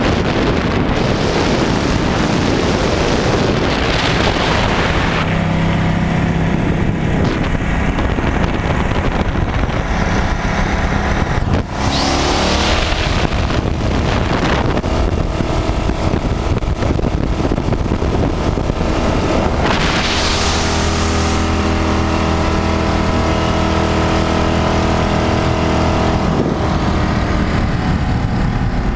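Speedboat's open-mounted inboard engine with a scoop-topped injection, running hard under way. It runs loud and steady, with a brief dip about twelve seconds in.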